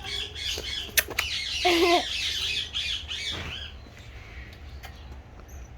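Rapid run of shrill squawking calls, about four a second, that fade out around three and a half seconds in, with a sharp click about one second in.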